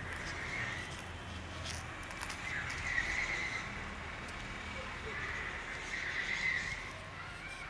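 A dog whining: three drawn-out, high, wavering cries, about half a second in, around three seconds and around six seconds.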